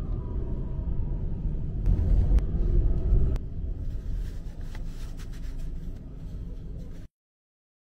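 Low rumble of a car moving through city traffic, heard through the glass from inside the car, with a few clicks. The sound cuts to dead silence about seven seconds in.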